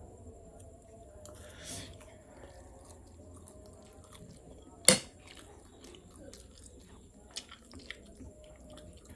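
A person chewing a mouthful of spicy instant noodles, with faint mouth noises, a short breathy hiss about two seconds in, and one sharp click about halfway through, the loudest sound.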